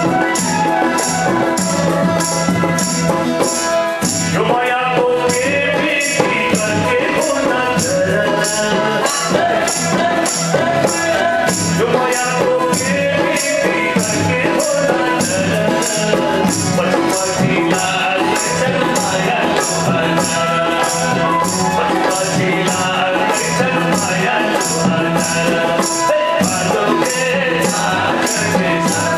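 Nepali folk song: a man singing into a microphone over harmonium and bamboo flutes, with a high jingling percussion keeping a steady beat about twice a second.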